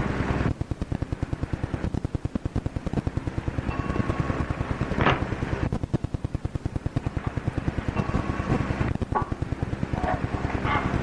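Rapid, even mechanical clicking, about ten clicks a second, running on without a break over a background hiss. There is a brief louder burst about five seconds in.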